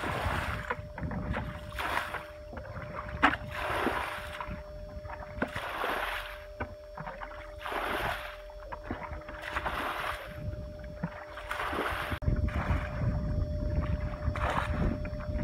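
Muddy pond water splashing and sloshing in bursts about every two seconds as people wade through it and bail it out with a bucket, over a faint steady hum. A low rumble joins in for the last few seconds.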